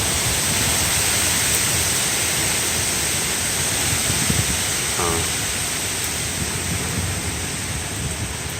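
Strong thunderstorm wind and rain making a steady loud rush, with the wind buffeting the microphone in low rumbles. A brief high pitched squeak comes through about five seconds in.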